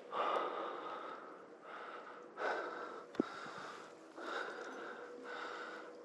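A climber breathing in steady, even breaths about once a second, with a single sharp click about halfway through.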